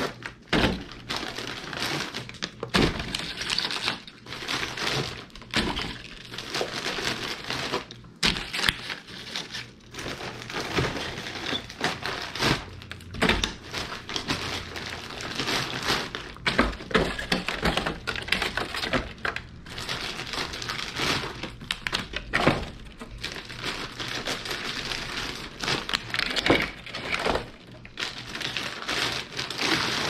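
Plastic water bottles crinkling, clicking and knocking as they are pulled from a shrink-wrapped case and set into a clear plastic rack, in a steady run of irregular clicks, clunks and rustles.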